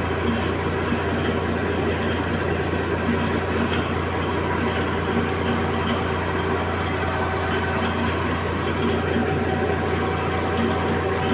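Heavy equipment engine idling steadily with a deep, even drone and no change in speed.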